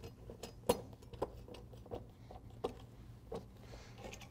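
Faint, irregular light clicks and taps of steel belt-fastener plates, bolts and template knocking together as a rubber conveyor belt end is pressed down onto the bolts.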